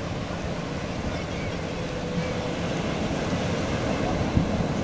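Steady outdoor noise of wind and surf at the shoreline, heaviest in the low rumble.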